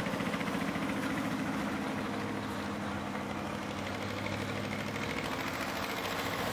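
An engine idling steadily, with a fast, even throb that does not change.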